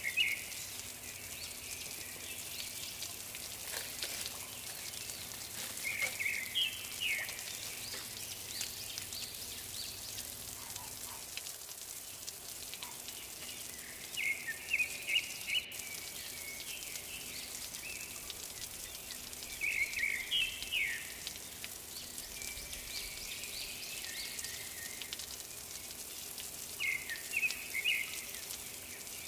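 Steady background hiss with short bursts of high chirping that come back every six or seven seconds.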